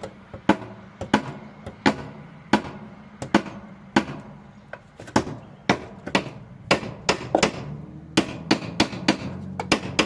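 Repeated hammer blows on a hub stuck on a lawnmower engine's drive shaft, knocking at it to drive it off. Sharp metal strikes, each ringing briefly, at an uneven pace of about two a second, coming closer together in the second half.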